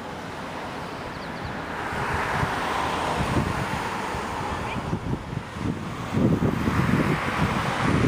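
Wind buffeting the microphone in gusts, heaviest near the end, over a steady rushing noise that swells and fades.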